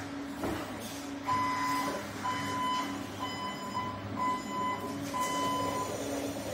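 Hyundai 16BRJ-9 electric reach truck's warning alarm beeping as the truck travels: about six steady beeps, roughly one a second, starting about a second in. A low pulsing hum runs underneath.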